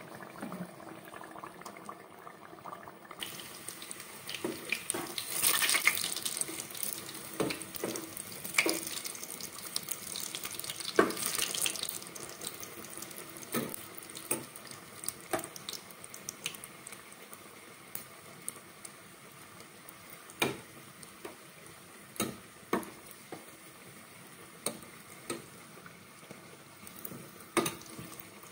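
Samosas deep-frying in a pot of hot oil, the oil sizzling and bubbling, louder for several seconds in the first half. A metal slotted spoon clicks and knocks against the pot now and then, most often in the second half.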